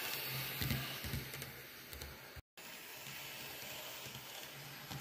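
N scale Atlas ALP-45DP model locomotive and coaches running on track: a low, steady motor hum with a few light clicks of the wheels over the rail, loudest about a second in. The sound cuts out completely for a moment about halfway through.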